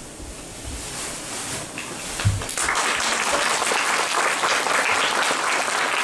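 Audience applauding, breaking out about two and a half seconds in, just after a short thump, and keeping up steadily.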